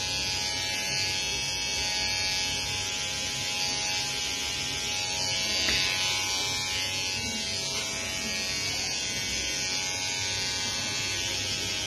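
Electric hair clipper running with a steady, even buzz.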